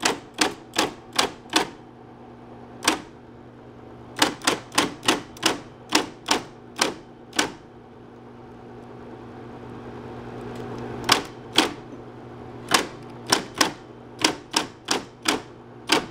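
Smith-Corona Coronet Super 12 electric typewriter typing key by key, sharp strikes coming in uneven runs of several a second with pauses between, over the steady hum of its motor. Each key is being struck in turn to show that they all work.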